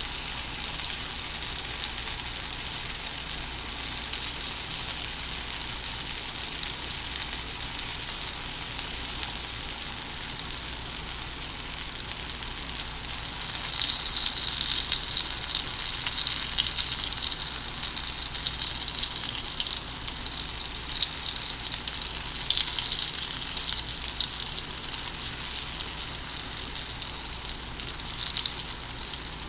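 Breaded mushroom bites deep-frying in a pot of oil: a steady sizzle with fine crackling, louder through the middle stretch, then easing.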